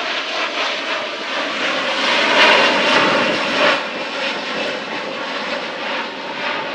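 Airplane engine noise from an aircraft passing overhead: a steady rushing roar that swells loudest about two to four seconds in.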